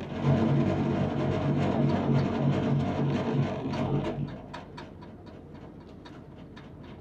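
Guitar music with a steady pulse of repeated low bass notes, fading out after about four seconds, then a run of light clicks.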